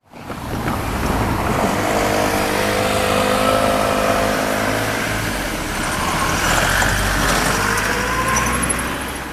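Vehicles passing over a railway level crossing: a steady motor whine whose pitch slowly shifts, over a low rumble.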